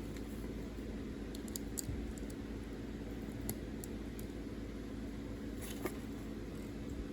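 Scattered faint clicks of LEGO bricks being handled, a few close together and a slightly louder pair near the end, over a steady low hum.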